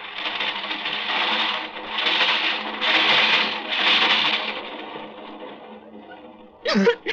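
Radio-drama sound effect of a subway train running, a rushing, rattling roar that swells about once a second four times and then dies down near the end.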